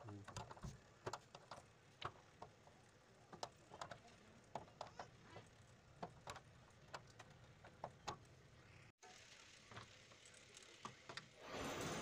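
Faint, irregular metallic clicks and ticks of nuts being turned and tightened onto the bolts of a washing machine's rotor plate. A steady hiss comes in near the end.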